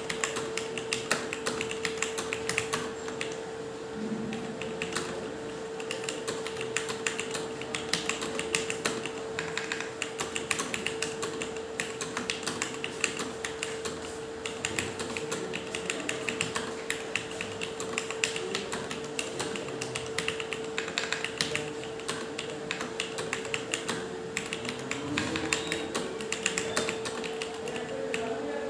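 Fast, continuous typing on a computer keyboard, a rapid irregular patter of key clicks, over a steady hum.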